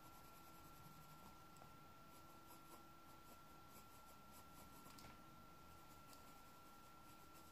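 Near silence: faint graphite pencil strokes scratching on sketchbook paper, over a steady faint high whine.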